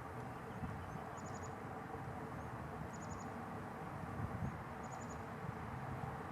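A small songbird repeating a short high phrase three times, about two seconds apart: a faint lead-in note, then a quick run of four high notes. Underneath runs a steady low rumble.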